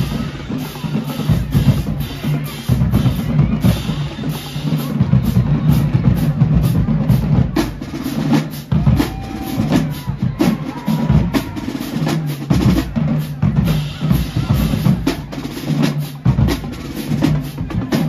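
Marching band drumline playing a loud cadence, with booming bass drums and sharp snare drum hits and rolls.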